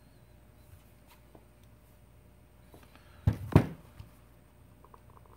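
An LG G5 smartphone being handled and turned onto its edge on a towel: faint room tone, then two dull knocks in quick succession about three seconds in, and a few faint clicks near the end.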